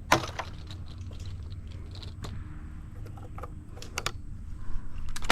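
A shotgun shot just after the start, ringing out briefly, followed by scattered light clicks and ticks.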